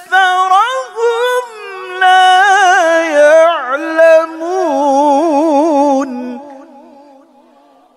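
A man's solo Quran recitation in the melodic tilawah style: long drawn-out notes that slide and waver rapidly in pitch, ending about six seconds in and then fading away.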